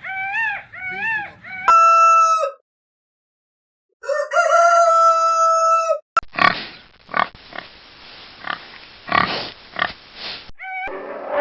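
A sequence of animal calls: a few short calls rising and falling in pitch, then two long, steady, high calls with a second of silence between them, then a run of noisy grunts lasting about four seconds.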